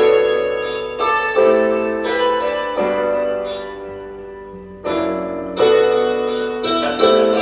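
Piano music played over a Bluetooth module and amplifier. Chords are struck roughly once a second and each rings out and fades before the next.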